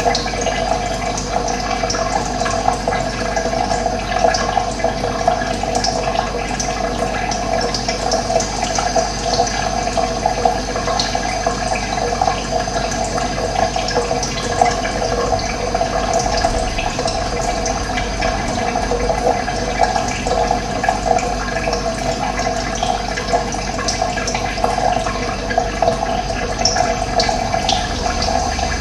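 Running water flowing steadily, with a few short, high bird calls scattered over it.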